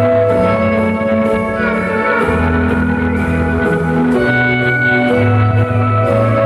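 Live music: keyboard chords held over a steady low bass line.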